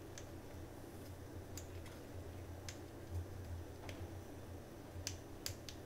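Light clicks and taps of small wooden and plastic kit parts being handled and fitted together, about one a second, over a faint low hum.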